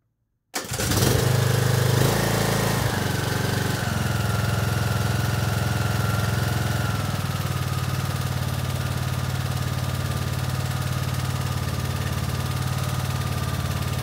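Briggs & Stratton 17.5 HP riding-mower engine starting about half a second in, then running at a steady, even speed. It runs smooth, not surging, with its clogged carburetor pilot jet just cleaned out.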